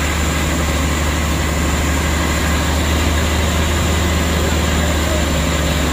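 A heavy vehicle's engine running steadily, a low drone under an even rushing noise of the ride through floodwater.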